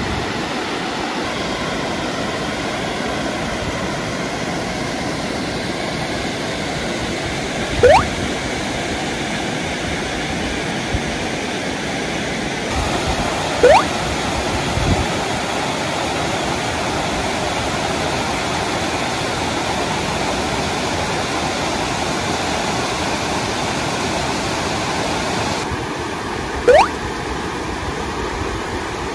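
Steady rushing of a waterfall cascading over rock ledges, its tone shifting slightly twice. Three short rising chirps sound over it, about 8, 14 and 27 seconds in.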